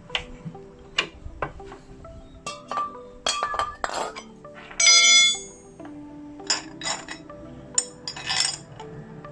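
Metal tools clinking and knocking against each other as they are handled, with one loud ringing metallic clang about five seconds in. Background music plays throughout.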